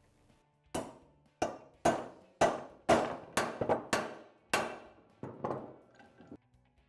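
Hammer striking a bearing driver, driving a bearing into a heated aluminium KTM 690 engine case half: about a dozen sharp, ringing metal blows over five seconds, the last few lighter.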